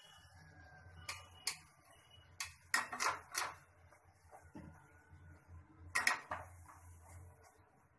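Steel spatula clinking and tapping against a kadai while a puri deep-fries in hot oil, several sharp metal clinks in three bunches. A faint steady sizzle of the frying oil runs underneath.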